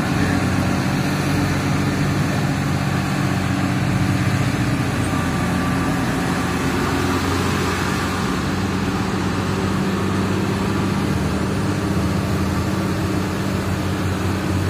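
A heavy truck's engine running with a steady low hum as the truck drives, heard from inside the cab along with road noise.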